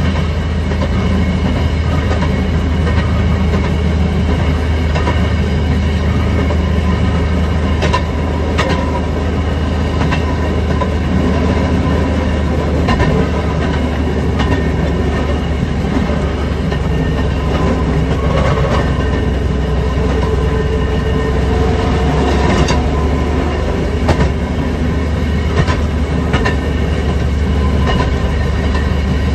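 Railroad speeder running along the track: a steady low engine drone with wheels clicking and clattering over the rail joints.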